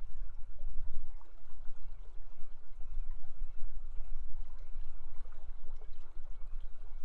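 River water rushing steadily, with a deep rumble underneath.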